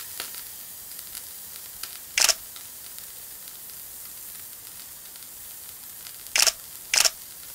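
Frying sizzle, a steady hiss with small crackles, from an egg in a frying pan. Three loud camera shutter clicks cut through it, one about two seconds in and two close together near the end.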